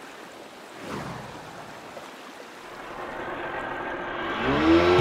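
Rushing-water sound effect: a steady wash with a whoosh about a second in, swelling toward the end. Guitar music comes in near the end with a sliding note.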